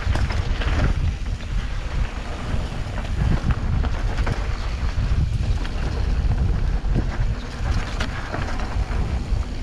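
Wind buffeting the camera microphone and tyres rumbling over a dirt trail as a mountain bike descends at speed, with frequent small clicks and rattles from the bike.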